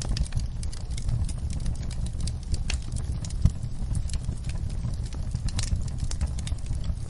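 Wood fire burning in a fireplace: a steady low rumble with irregular crackles and small pops, one sharper pop about three and a half seconds in.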